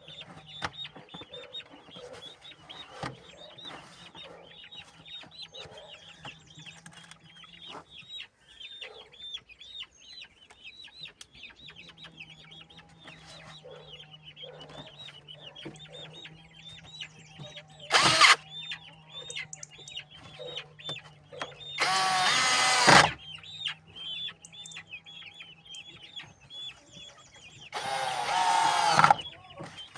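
Chickens clucking, with many small high peeps throughout and a low steady hum behind them. There is a sharp loud call about two-thirds of the way through, then two loud calls of about a second each near the end.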